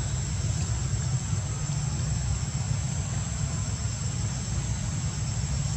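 Steady low rumble with a thin, steady high-pitched whine over it; no distinct calls or knocks stand out.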